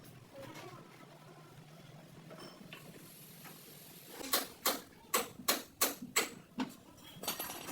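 A run of sharp knocks, about two to three a second, starting about four seconds in after a quieter stretch of faint steady noise.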